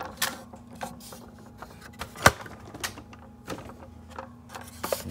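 Hard plastic toy truck (Matchbox Rocky the Robot Truck) knocking and clicking as it is handled and turned over, with one louder knock about two seconds in.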